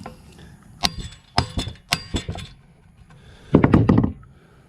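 Metal clinks and knocks of hand tools against the go-kart engine's cylinder head during disassembly: several sharp strikes with a short metallic ring, then a louder, quick rattling clatter near the end.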